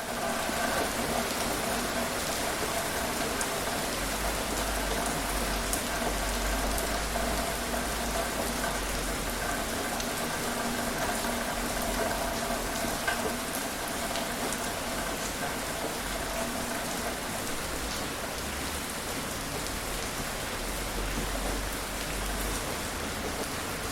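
Moderate rain falling steadily: an even hiss of rainfall with scattered sharper drop ticks and a low rumble underneath.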